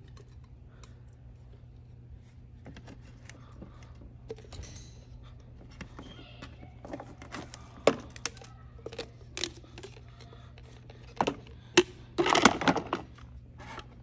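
Scattered clicks and knocks of a glass drip-coffee-maker carafe and its plastic lid being handled as meat and vegetables are packed into it, with a louder burst of clatter about twelve seconds in.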